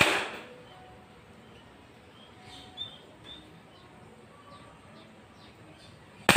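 Two shots from a CO2-powered airsoft revolver firing 6mm steel BBs double action, about six seconds apart. Each is a sharp crack that dies away within half a second.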